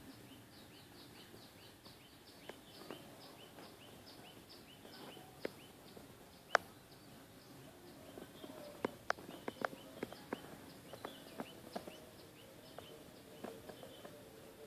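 A small bird calling a short high chirp over and over, about three a second, fading after the first few seconds. Scattered sharp clicks and knocks join in from about five seconds in, one loud knock standing out partway through.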